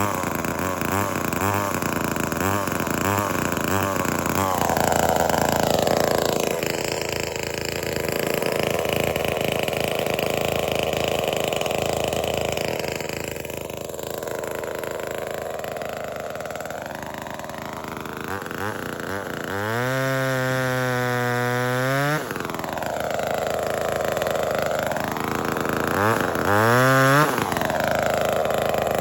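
Cheap small two-stroke gasoline chainsaw engine running, revved in quick blips over the first few seconds, then settling lower. It is run up hard for about two seconds about two-thirds of the way in, drops back, and is revved briefly once more near the end.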